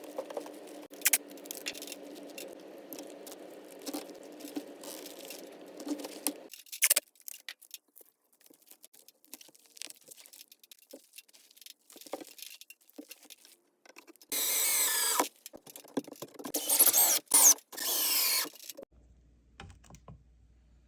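A low steady hum with handling clicks and knocks, then a power tool run in several short bursts near the end.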